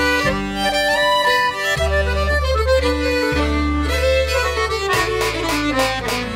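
Instrumental background music: a melody over long held bass notes that change every second or two.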